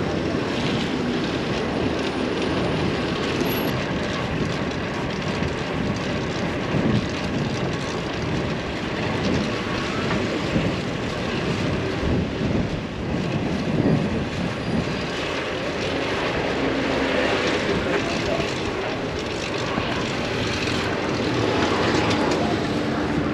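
Steady city traffic noise heard from a bicycle moving between lanes of congested cars and trucks: engines running, with a constant rush of wind and road noise.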